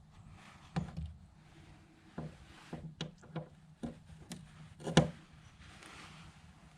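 A scattered series of short clicks and knocks from an Allen key working the socket-head bolts of an antenna mount as they are snugged up, the loudest knock about five seconds in.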